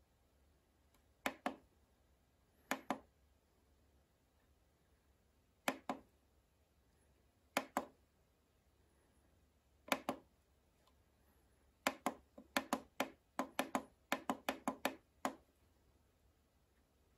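Sharp plastic clicks from the rotary knob of an Audiocore AC9900 car radio head unit as it is pressed and turned. There are five double clicks a second or two apart, then a quicker run of about a dozen clicks near the end.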